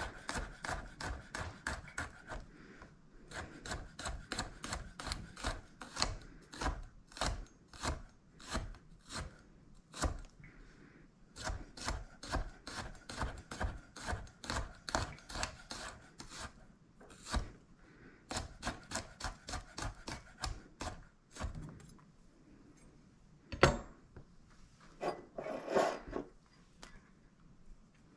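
Chef's knife mincing garlic on a bamboo cutting board: quick, even strikes of the blade on the wood, about three a second, that stop about twenty seconds in. Near the end come a single louder knock and a short cluster of knocks and scrapes.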